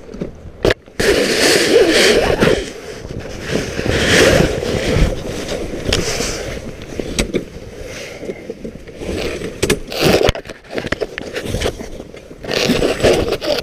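Clam flip-over ice fishing shanty being pulled up and over: its fabric cover rustling and scraping in irregular bursts, with sharp clicks and knocks from the metal frame poles.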